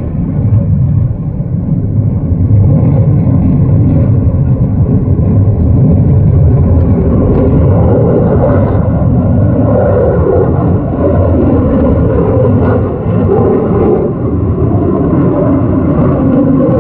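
Jet aircraft engine noise: a loud, continuous low rumble whose tone slowly shifts, without a break.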